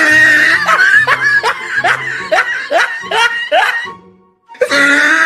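Comic laughter sound effect: rapid, high-pitched laughing at about three laughs a second, which drops out briefly about four seconds in and then starts again.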